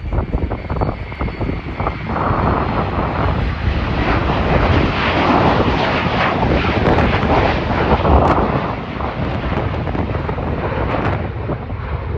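A jet airliner's engines, passing nearby: a broad roar that builds about two seconds in, peaks midway and then eases, with wind rumbling on the microphone underneath.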